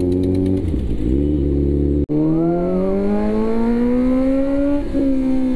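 Kawasaki Z900's inline-four engine accelerating, heard from the rider's seat: the engine note climbs steadily through a gear, dips briefly at a gear change near the end and holds steady after. The sound cuts out for an instant about two seconds in.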